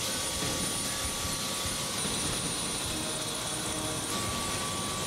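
Medical helicopter's engine and rotor running, a steady rushing noise with a thin high whine. About four seconds in, the sound shifts to the helicopter heard from inside its cabin.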